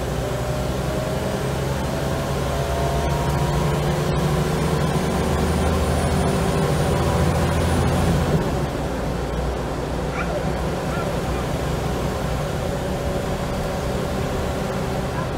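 Scania L94UB bus heard from inside the saloon, its engine pulling hard with the whine of the ZF automatic gearbox rising in pitch for about eight seconds. Then the engine note drops and settles into a steadier run. There is a single sharp click about four seconds in.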